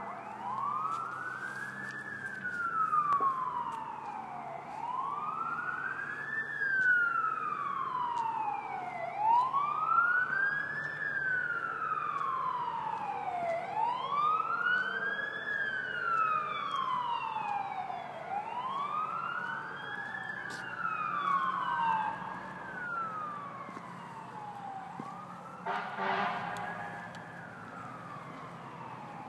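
Emergency vehicle siren on a slow wail, rising and falling in pitch about once every four and a half seconds. A second siren sweep overlaps briefly about two-thirds of the way through, and there is a short blast near the end.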